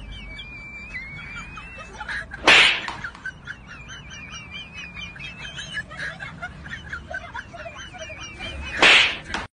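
Birds chirping over and over in the background. Two loud, short bursts of noise cut across it, one about two and a half seconds in and one near the end.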